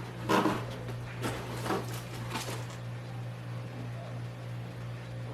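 A few short rustling or handling noises in the first two and a half seconds over a steady low hum.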